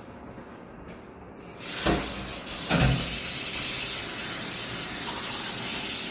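Kitchen tap turned on, water running steadily into a stainless-steel sink from about a second and a half in, with two loud thuds just after it starts.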